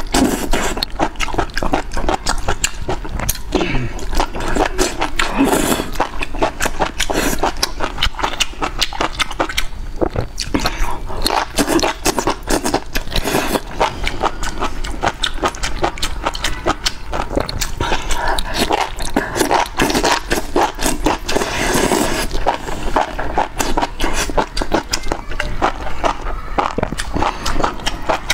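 Close-miked eating of enoki mushrooms in chili oil: steady wet slurping, chewing and mouth smacks, with a dense run of small clicks.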